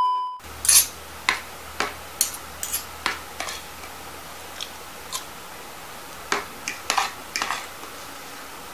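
A brief steady test-tone beep cuts off at the very start. Then a metal spoon and fork clink and scrape irregularly against a plate as noodles are eaten, over a low steady hum.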